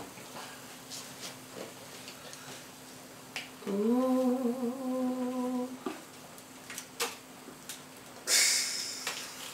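A person hums a closed-mouth 'mmm' for about two seconds midway, with a few soft clicks before and after and a short hissy rustle near the end.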